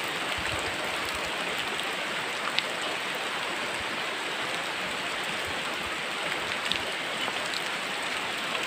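Steady rushing water noise at an even level, with a few faint clicks and low knocks from walking.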